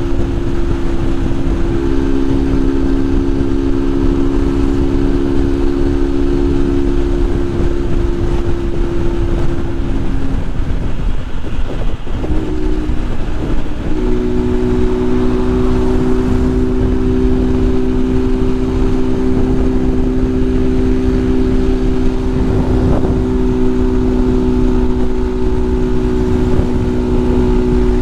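Honda Titan 150's single-cylinder engine running steadily at cruising speed under way, with heavy wind rush over the microphone. The engine note drops out about ten seconds in and comes back steady a few seconds later.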